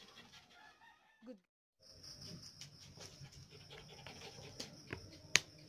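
A small dog panting faintly, with scattered light taps and clicks, the sharpest one near the end. About a second and a half in the sound drops out briefly and comes back with a faint steady hiss.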